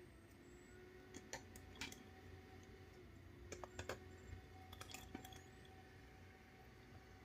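Faint light clicks and taps of hard plastic and metal parts being handled: a small metal bracket and screws fitted onto an RC car's plastic differential housing. They come in three small clusters, around one to two seconds in, near four seconds and around five seconds.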